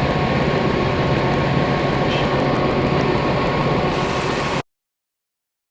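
Loud, steady mechanical drone with a low hum and a thin steady whine. It cuts off abruptly about four and a half seconds in, into complete silence.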